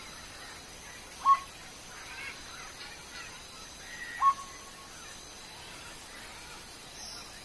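Two short, loud bird calls about three seconds apart, each a quick upward slide into a brief held note, with fainter bird chirps in the background.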